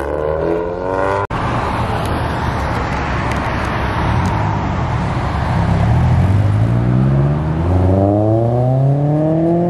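Car engines accelerating. A short climb in engine pitch is cut off about a second in, then comes a loud rushing of exhaust and road noise. Over the last three seconds a car's engine pulls away, its pitch climbing steadily as it revs up.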